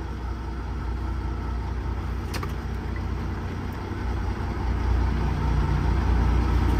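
Heavy diesel truck engine running at low revs, getting louder from about four seconds in as the truck is guided back.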